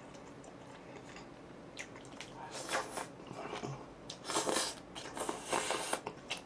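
A person chewing food close to the microphone: wet mouth clicks and a few short bursts of eating noise in the second half.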